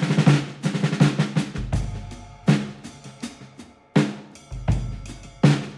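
Background music with a drum kit: snare and tom hits in quick fills, with deep bass drum swells about two seconds in and again near the end.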